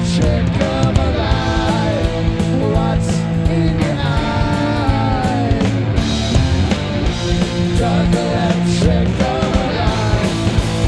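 A rock band playing live: electric guitars, bass guitar and drums, with steady drum hits under sustained bass notes and wavering guitar lines.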